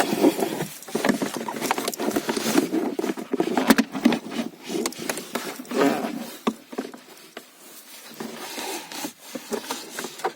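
Irregular plastic clicks, knocks and rubbing as the car's glovebox and cabin-filter cover parts are handled and refitted, thinning out over the last few seconds.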